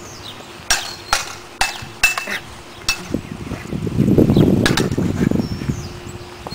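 Baseball bat and white plastic pipe clacking against each other in a mock sword fight: about six sharp knocks spread over the first five seconds, a couple with a short ring. Around four to five and a half seconds in, a louder stretch of low rumbling noise.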